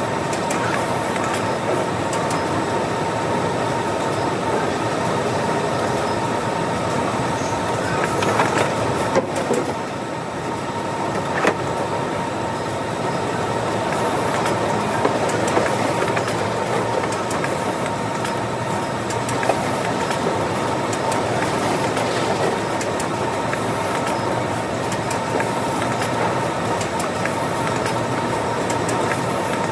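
Steady din of warehouse conveyor belts and an automated bag-packing machine, with a constant high hum running through it and a few short clunks from the machinery.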